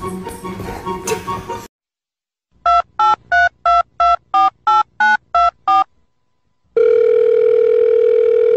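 Telephone touch-tone keypad dialing: ten quick two-pitch beeps, about three a second, followed by one long steady tone of about two seconds. It opens with the end of background music, cut off before a brief silence.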